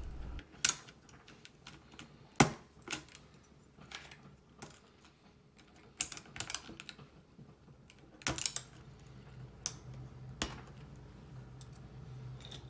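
Plastic keycaps of a TRS-80 Model 100 keyboard being pried off with a wire keycap puller and dropped onto a pile: scattered sharp clicks, some single and some in quick clusters.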